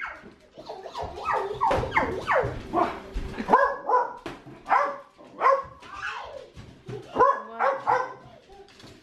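A dog barking and yipping over and over, about two barks a second.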